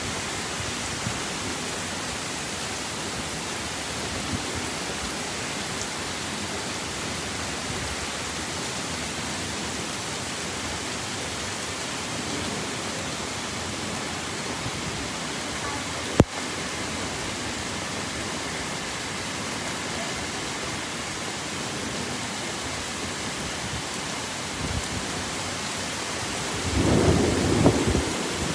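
Heavy rain pouring steadily, an even hiss. There is one sharp click about halfway through, and near the end a louder rumble of thunder.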